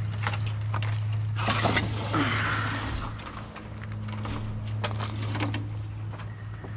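Galvanised chicken wire rustling and clinking as it is handled, with many short sharp clicks and a rustling stretch about a second and a half in, over a steady low hum.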